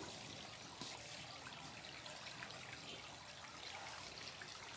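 Faint lakeside ambience: an even soft hiss with a light trickle of water at the bank and a few small scattered clicks.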